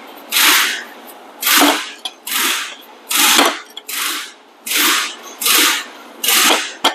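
Repeated hammer blows on a stuck car starter, about one a second and evenly paced, knocking the old starter loose to remove it.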